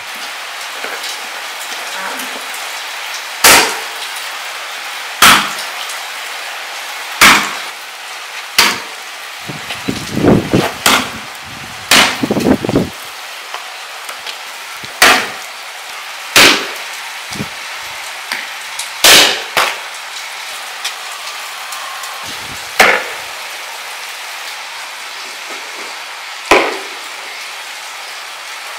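Meat cleaver chopping a leg of lamb on a wooden chopping board: about a dozen heavy, sharp chops a second or two apart, with a quicker run of lighter hits partway through.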